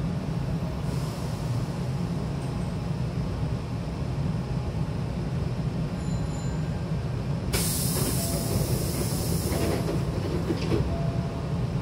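Steady hum of a stopped Hankyu commuter train, then its sliding passenger doors close: a loud hiss of air about seven and a half seconds in, lasting about two seconds, followed by short knocks as the door leaves meet.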